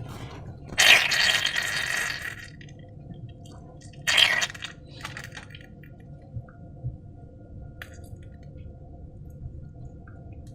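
Slime-making handling sounds: a noisy burst about a second in that lasts over a second, and a shorter one around four seconds. After that there is only a faint steady hum with a few small ticks.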